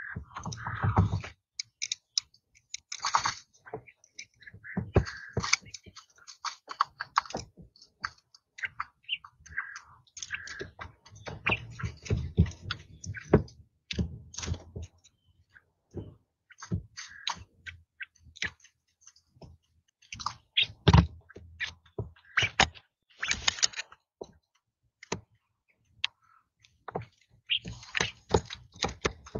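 Young quail pecking and scratching at a feeder and around the camera, giving a dense, irregular run of sharp taps and clicks, with a few short high chirps in between.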